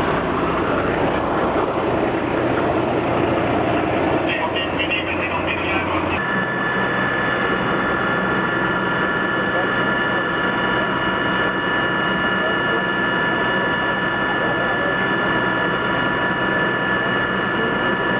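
Fire engines running at the scene: a steady diesel drone, with a set of steady whining tones from about six seconds in.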